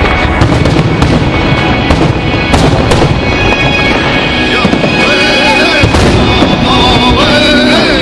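Aerial fireworks shells going off in a rapid series of bangs, thickest in the first six seconds or so, over music from a radio broadcast that plays throughout and comes to the fore near the end.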